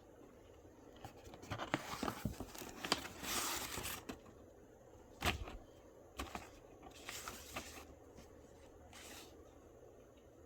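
A desk fan's box and packaging being opened by hand: tearing and crinkling, with scattered clicks and one sharp knock about five seconds in.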